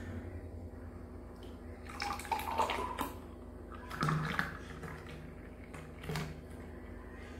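Milky drink poured from a steel tumbler into a drinking glass, splashing and trickling into the glass in a few spells.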